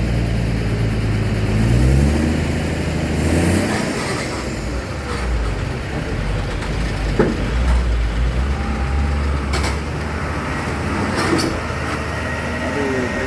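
Truck engine running, its pitch rising over the first few seconds as it picks up revs, then settling into a lower steady rumble, with a few light knocks.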